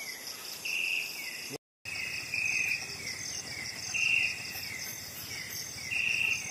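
Chorus of insects: a steady high trill with a louder chirping call repeating about every second and a half, short falling calls and quick high notes. All sound cuts out for a moment about one and a half seconds in.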